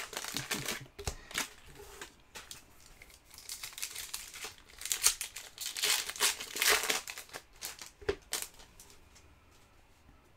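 Foil trading card pack wrapper crinkling and tearing as it is opened by hand and the cards are pulled out, in irregular bursts that die away near the end.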